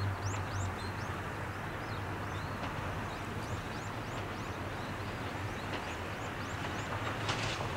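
Birds calling in many short, high chirps over a steady outdoor rumble. About seven seconds in there is a brief burst of hiss.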